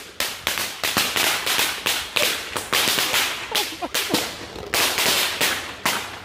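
A string of firecrackers going off: a rapid, uneven run of loud, sharp bangs, about four a second, with a brief pause about two-thirds of the way through.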